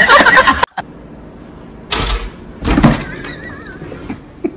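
A woman laughing hard, cut off abruptly within the first second. After the cut come two short, loud noisy bursts about a second apart.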